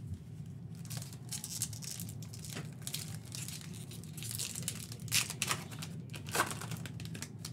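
Panini basketball trading-card pack wrapper being crinkled and torn open by hand, in irregular crackling bursts with the loudest rips near the end.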